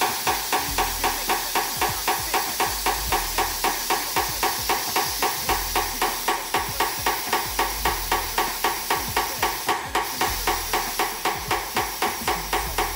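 Compressed air hissing into a tire through a tire changer's inflation hose, pulsing evenly about four times a second.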